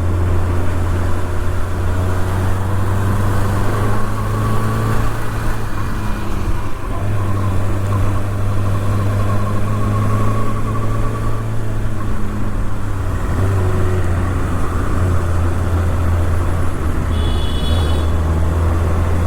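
Kawasaki ZX-6R's inline-four engine running at a steady cruise on the road, with wind and road noise over it; the engine note shifts slightly a few times. A brief high beep sounds near the end.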